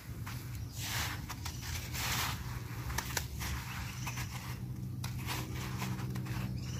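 Sesame seeds rustling and scraping against a plate as dough balls are rolled through them by hand, in short bursts with a few light clicks, over a steady low hum.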